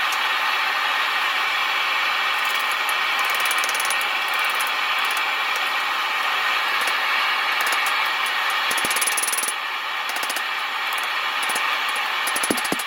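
Propane forge burner running with a steady roar, with a few light metallic clinks near the end.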